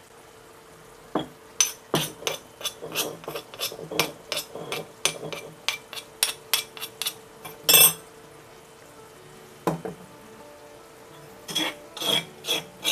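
A metal spatula scrapes and clinks against a pan in quick, irregular strokes as the spice paste is stirred, now fried until its oil separates. One longer, louder scrape comes near the two-thirds mark. After a short pause the clinking resumes. A steady faint hum runs underneath.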